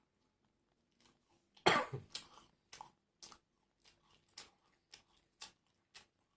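A single cough about two seconds in, followed by close-up chewing of crunchy food, likely the emping crackers, with short crackling crunches about twice a second.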